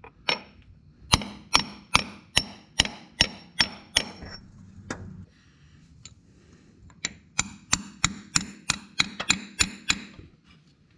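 Hammer tapping on a 1¾-inch socket used as a driver to seat a new brake actuator rod seal. Sharp metal taps come at about two and a half a second. They pause for about two seconds midway, then resume in a slightly quicker run of about ten taps.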